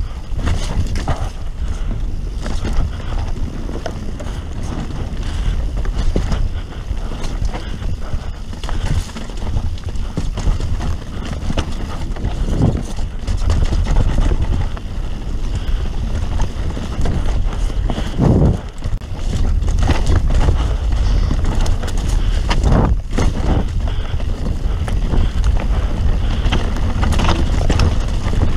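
Wind buffeting the helmet or chest camera's microphone as a mountain bike descends a dirt singletrack. Tyres roll on the dirt and the bike rattles, with frequent short knocks over roots and bumps.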